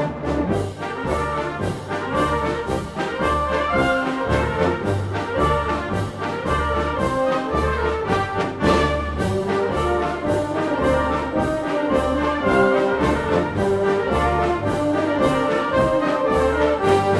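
Concert band playing a quick, steady passage: brass and woodwinds play over regular percussion strokes, about three a second, and a bass line that moves in even steps.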